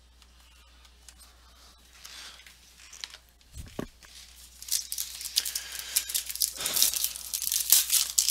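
Foil card pack being torn open and crinkled by hand. The dense crackling starts about halfway in and carries on to the end. A soft low thump comes just before it.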